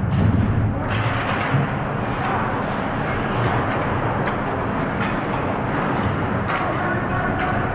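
Ice hockey play on a rink: a steady hiss of skates on the ice, echoing in the arena, with several sharp clacks of sticks and puck at irregular moments. A low rumble fades out about a second in.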